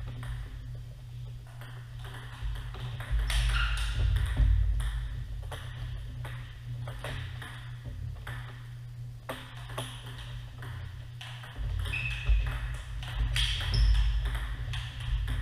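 Celluloid-type table tennis ball clicking off paddles and the tabletop in a rally, a quick irregular run of sharp ticks, over a steady low hum with a few short squeaks.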